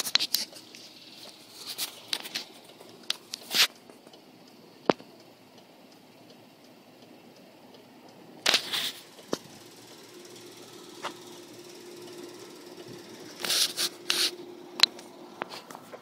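Handling noise from a handheld camera being moved about: scattered clicks and knocks and short rustling bursts, over a faint steady hum that begins about ten seconds in.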